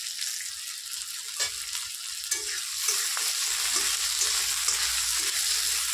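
Onion, garlic and tomato sizzling in hot oil in a pan, with a spatula stirring and scraping through them and a couple of sharper knocks against the pan about a second and two seconds in.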